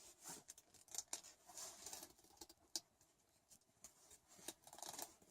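Faint scattered clicks and short scratches of a hand tool working on stripped cable ends, with a few sharper clicks.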